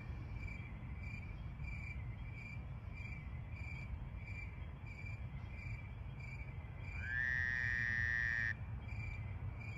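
Crickets chirping at an even pace, about two chirps a second, over a low hum. About seven seconds in, a higher tone rises and holds for about a second and a half, then cuts off.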